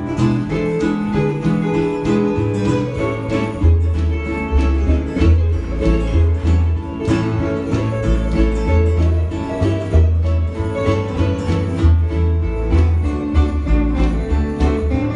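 A band playing a song live, with guitars to the fore over a bass line that moves from note to note.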